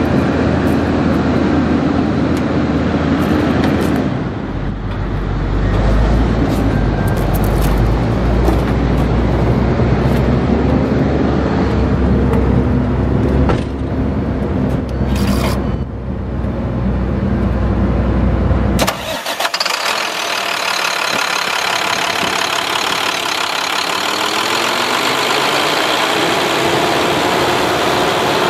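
MaxxForce DT inline-six diesel engine of an International 4300 truck running steadily at idle with a deep rumble. A little past halfway the sound changes abruptly to a closer, brighter engine-bay sound with less bass and a faint whine that rises and falls.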